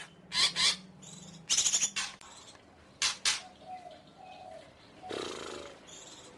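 Green leafbird (cucak ijo) singing: a few loud, harsh rasping bursts with softer short whistled notes between them.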